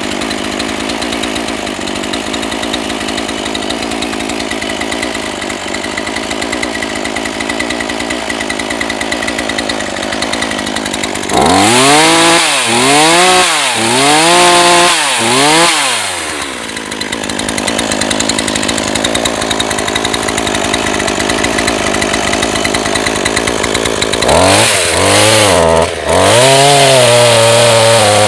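NEO-TEC NH 841 gasoline chainsaw's small two-stroke engine running steadily, then revved up and let down repeatedly, in two runs of quick rises and falls. The owner says the saw still needs carburettor tuning.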